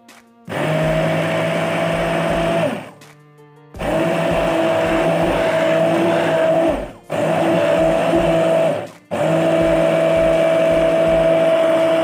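Electric immersion (hand) blender running in a plastic jug of milk, crushed Oreo biscuits and cocoa powder, with a steady motor hum. It runs in four pulses of a few seconds each with brief stops between, the first starting about half a second in.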